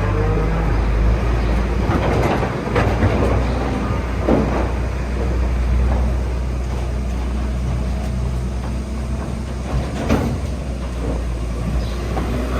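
A steady low machine drone, like an engine running, with a few knocks and rattles over it.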